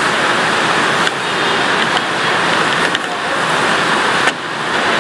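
Yaki ramen noodles, meat and vegetables sizzling steadily in hot oil in a frying pan while being stir-fried with a wooden spatula.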